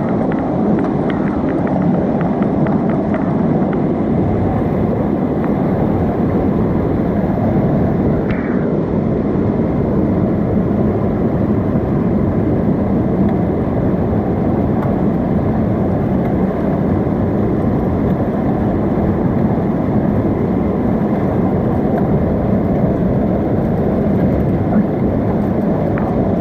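Whitewater rushing loudly and steadily under a logjam, heard from right at the water's surface, with a few light clicks in the first few seconds.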